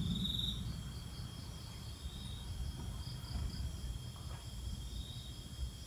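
Night crickets trilling steadily in a high, pulsing chorus, over a low rumble.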